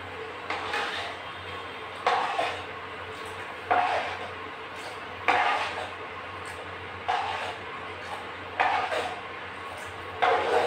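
Steel spoon stirring a pan of dal, knocking and scraping against the pan seven times, about once every second and a half. A steady low hum runs underneath.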